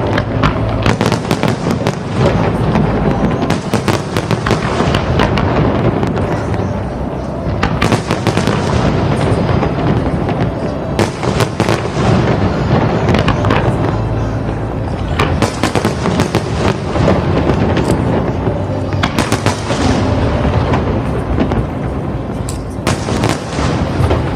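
Fireworks display: a rapid, continuous barrage of shell bursts with cracks and crackling, accompanied by music.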